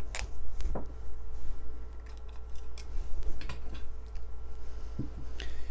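A few light, scattered plastic clicks and taps from hands handling a handheld radio in its clip-on plastic holster, over a steady low hum.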